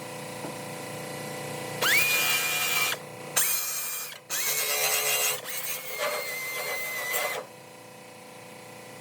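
Small handheld power tool cutting sheet metal from a car door, run in four short bursts of one to two seconds. Each burst spins up quickly to a steady high whine.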